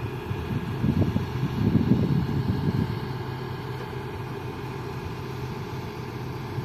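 Diesel engine of a Doosan DX140W wheeled excavator running as its bucket digs into a sandy dirt pile, a low hum that is louder and uneven for the first three seconds, then steady.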